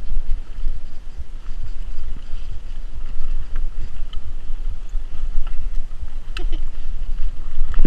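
Wind rumbling on the microphone and the rattle of a mountain bike ridden fast down a dirt singletrack, with scattered sharp knocks as the bike goes over bumps.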